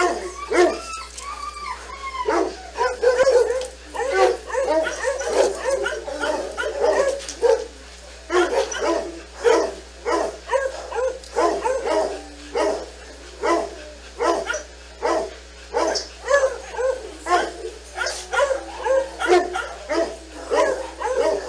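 Dogs barking over and over, about one or two short barks a second, with arching, howl-like yips in the first few seconds.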